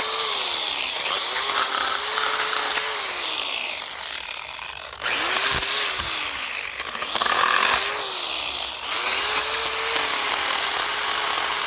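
Small corded electric chainsaw cutting limbs off a dry felled tree, its motor whining up, holding and dropping away in several separate runs as the trigger is squeezed and released, with the hiss of the chain chewing through wood.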